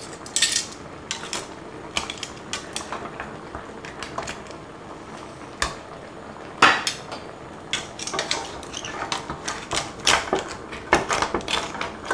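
Metal tongs and a wooden spoon clinking and knocking against conch shells and the side of a stainless steel pot, in irregular clatters, as cooked conch are lifted out of the broth. One knock about six and a half seconds in is the loudest, and the clatter comes thicker in the second half.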